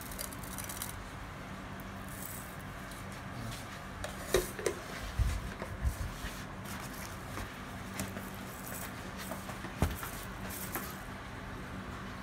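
Whole spices being dropped into a stainless steel mixer-grinder jar: small rattles and a few sharp clinks of seeds and pieces striking the metal, loudest about four to six seconds in and once more about ten seconds in.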